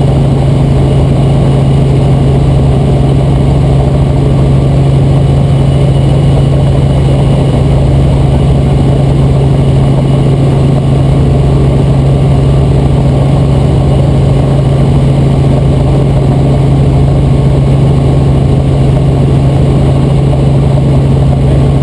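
Robinson R44 Raven II helicopter in cruise flight heard from inside the cabin: its six-cylinder Lycoming IO-540 engine and rotors make a loud, unbroken drone with one strong steady low hum.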